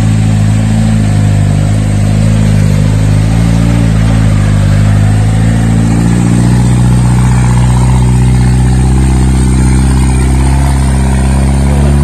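Off-road 4x4's engine running hard under load as it climbs a steep slope, loud and fairly steady in pitch with slight wavering as the revs shift.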